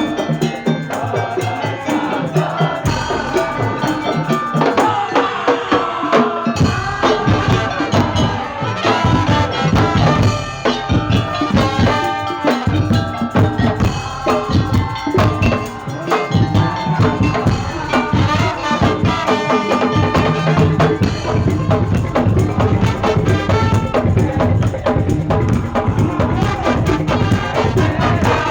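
Madurese daul (tongtong) ensemble playing: a dense, driving beat of drums and bamboo slit drums with a melody carried over it.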